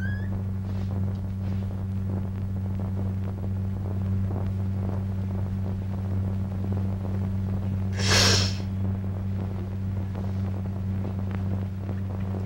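Steady low hum of an old film soundtrack, with one short breathy noise about eight seconds in.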